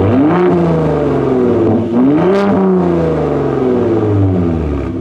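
Ford Raptor's 3.5-litre twin-turbo EcoBoost V6, heard at the tailpipe with its active-valve exhaust in Baja mode, revved twice while standing still. Each rev climbs quickly, then falls back slowly, the second dying away over about two and a half seconds.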